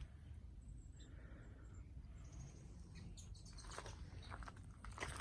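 Faint birds chirping in short high calls, with a few faint clicks later on and a low rumble underneath.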